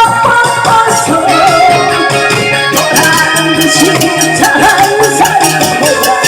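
Loud backing music for a gakseori song: a wavering melody line over a steady shaker-like percussion beat.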